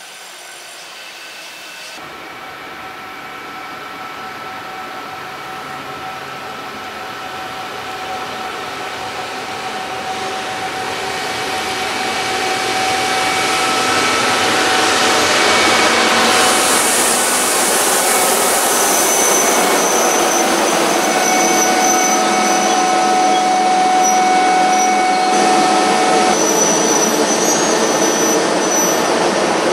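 Freight train approaching and running past: a steady rolling rumble swells over about a dozen seconds and then holds level as the train goes by, with several steady whining tones above it.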